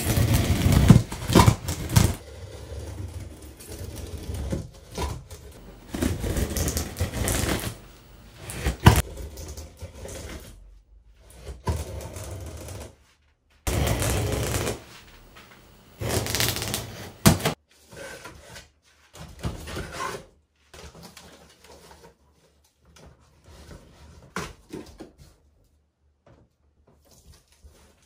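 A knife blade slicing through packing tape along a cardboard box's seams, in irregular scraping strokes with sharp knocks. Later come quieter knocks and rustles of cardboard as the box flaps are handled.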